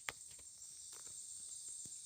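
Steady high-pitched chorus of insects such as crickets, with a few faint sharp ticks or snaps, one near the start, one about a second in and one near the end.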